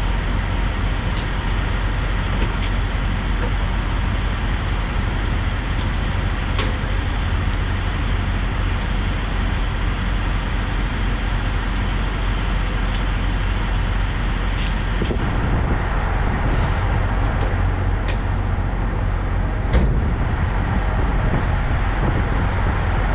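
Diesel truck engine idling steadily with a low hum, and a single knock near the end.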